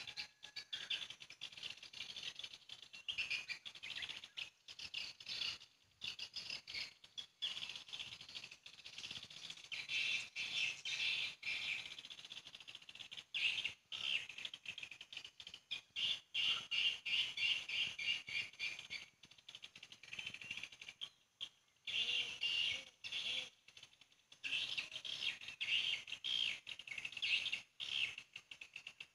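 Swiftlets twittering: dense, rapid high chirps in long runs broken by a few short pauses.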